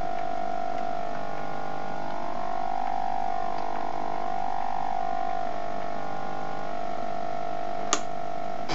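72 MHz signal from an EFLY-100B FM RC airplane transmitter, picked up by a homemade ADRF6850-based radio receiver and heard as a steady buzzing tone whose pitch wavers up and down in the middle. A short click near the end.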